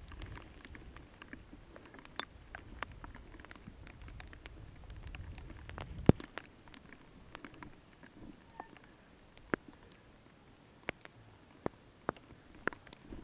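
Mountain bike rolling over rough trail: a low rumble that fades about six seconds in, with scattered sharp clicks and knocks, the loudest at the six-second mark.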